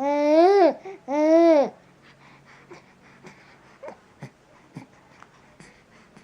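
Two-month-old baby cooing: two loud drawn-out vocal sounds in the first two seconds, each rising and then falling in pitch. After them come only faint short clicks.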